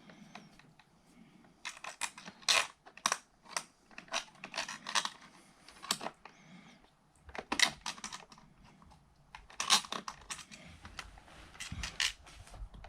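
Irregular metallic clicks, taps and scrapes from a chrome socket faceplate and its fixing screws being handled and pushed against the wall box as the plate is fitted.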